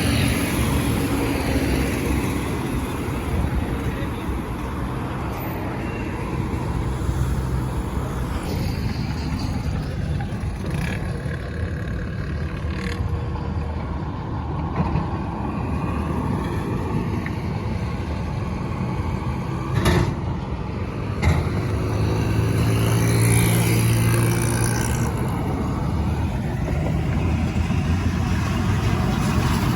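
Motor vehicle engine and road noise, running steadily and getting louder about three quarters of the way through, with two sharp knocks a little past the middle.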